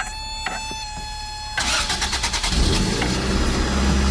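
Toyota MR2 AW11's 1.6-litre four-cylinder engine being started: a steady high tone, then about one and a half seconds in the starter cranks and the engine catches and settles into a steady idle. The engine is running with its exhaust leak freshly repaired, which the owner says sounds better.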